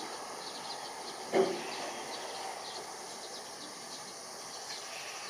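Outdoor background noise with faint, rapidly repeating high chirping, broken by a single dull thump about a second and a half in.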